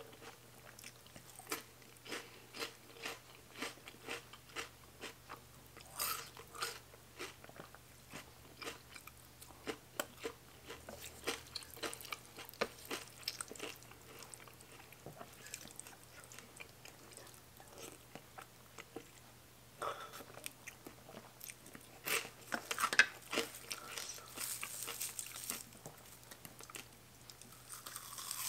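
Close-up eating sounds: a person biting and chewing crisp raw vegetables, with irregular crunches and mouth clicks, louder clusters of crunching about six seconds in and again in the last third.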